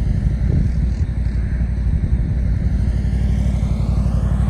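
A steady, loud low engine rumble with a fast, even pulse, holding the same level throughout.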